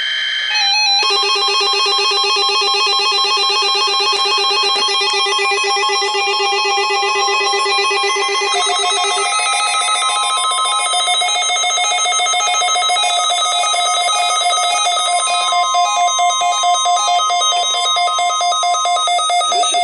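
Weather radio warning alarm sounding for a weekly test: a steady tone near 1 kHz mixed with a warbling electronic alarm of several pitches. The pattern shifts about nine seconds in, and the alarm cuts off just before the end.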